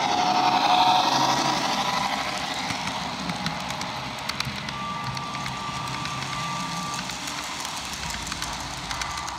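Model railroad freight cars rolling past close by: a steady rolling rattle of small metal wheels with quick clicks over the rail joints, and a thin steady squeal for about two seconds midway.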